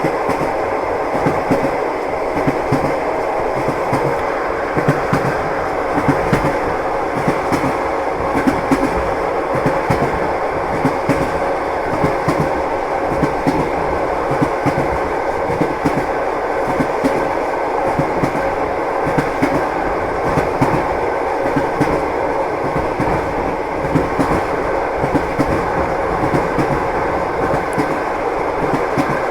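Train wheels clattering over the rails: a steady running rumble with frequent short clacks.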